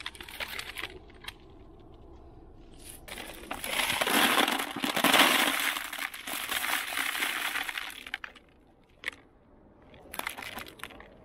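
Small stones poured from a plant pot into a plastic bucket: a clattering rush of stones lasting about four seconds, with a few shorter rattles of stones before and near the end.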